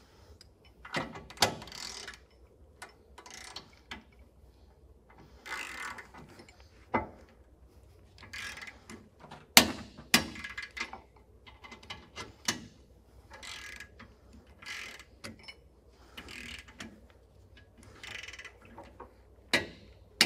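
Torque wrench ratcheting in short bursts as the hitch base's set screws are tightened to 85 ft-lb, with several sharp clicks. The loudest come about halfway through and near the end: the wrench clicking over at its set torque.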